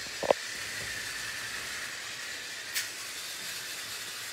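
Battery-powered toy train running along a plastic track with a faint, steady motor whir and hiss. A sharp click comes about a third of a second in, and a brief hiss near three seconds in.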